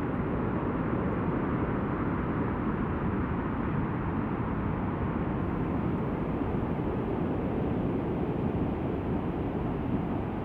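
White noise synthesized in Ableton into a weather ambience of rain and wind, playing as a steady, dark hiss. It is low-pass filtered, so the highs are cut off and the sound is mostly low rumble.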